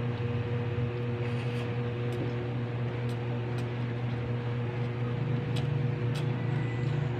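A steady low mechanical hum with a few fixed tones throughout, with faint scattered clicks and taps of fingers picking food from a ceramic plate.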